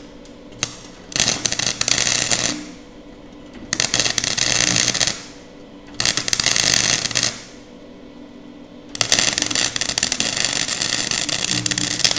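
Gasless flux-cored MIG welder (Nagano MIG 130) arc crackling in four bursts, the first three about a second and a half each and the last about three seconds, as it welds thin 20-gauge sheet at wire speed 5 and minimum voltage: spot welds and then the start of a bead.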